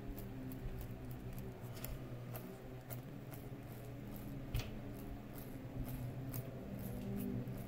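Light, irregular clicking and ticking from a small brass-and-stainless-steel flyball governor's gears and linkage as its pulley is turned by hand, over a steady low hum.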